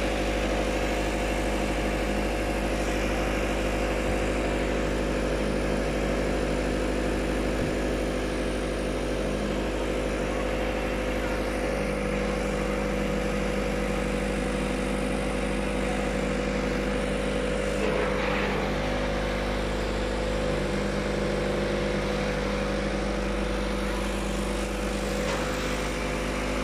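Flatbed tow truck's engine idling steadily, a constant hum with a few fixed tones.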